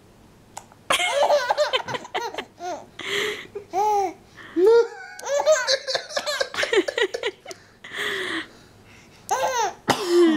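Baby girl laughing in repeated high-pitched bursts of squealing giggles, starting about a second in, set off by her pacifier being pulled out of her mouth.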